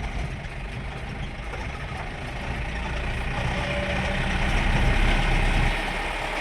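Engine of a vehicle heavily loaded with tyres, driven slowly, with road and tyre noise. The engine note builds gradually, then drops off suddenly near the end as the engine eases off.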